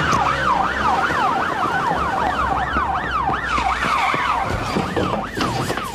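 Police car siren on a fast yelp, rising and falling about three times a second, over a low engine rumble. It fades out near the end.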